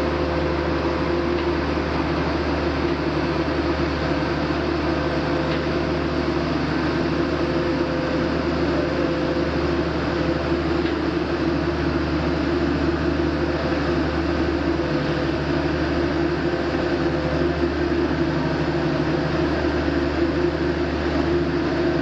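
Self-propelled modular transporter's diesel power pack running steadily as the heavily loaded multi-axle trailer creeps forward on its hydraulic drive. The sound is an even, unbroken drone with a low hum and a steady higher whine over it.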